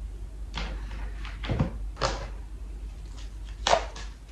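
A deck of tarot cards being shuffled by hand: a string of short, unevenly spaced swishes of cards sliding against one another, the loudest near the end.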